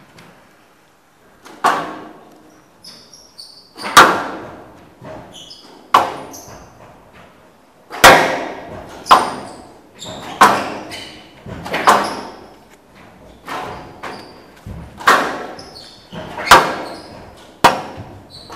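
Squash rally: sharp cracks of the ball off rackets and the walls of a glass-walled squash court, echoing in a large hall, about a dozen hits coming every one to two seconds. Between shots come short squeaks of shoes on the court floor.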